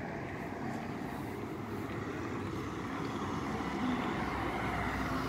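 Road traffic on a city street: cars driving past, the sound slowly growing louder as a car approaches toward the end.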